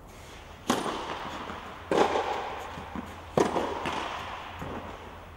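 Tennis ball struck hard by rackets three times, a serve and two returns about a second and a half apart. Each hit is sharp and echoes in a large covered hall, with softer ball bounces between them.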